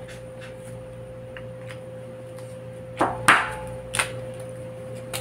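A few sharp taps and a short rustle as a marker pen is picked up off a paper pattern lying on a table, about three to four seconds in, over a steady hum.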